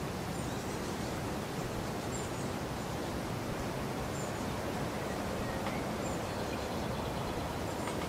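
Steady rushing outdoor background noise, with faint, short, high-pitched bird chirps repeating every second or two.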